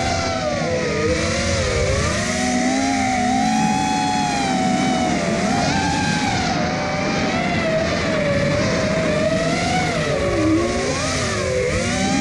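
FPV quadcopter's electric motors and propellers whining, the pitch rising and falling again and again as the throttle changes in flight.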